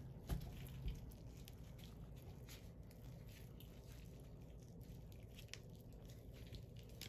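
Faint wet squishing and small ticks of a raw chicken wing being twisted and flexed in nitrile-gloved hands, working the joint loose so the bone can be pulled out. Two soft clicks come within the first second.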